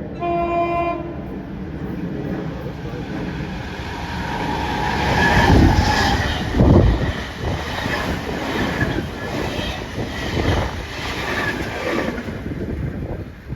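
A train gives a short horn blast, then passes at speed, its wheels clacking over the rail joints in a repeated rhythm; it is loudest about six seconds in.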